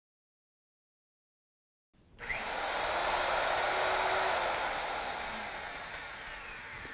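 Electric motor of a magnetic base drill running with a steady whir. It starts about two seconds in and slowly dies away near the end.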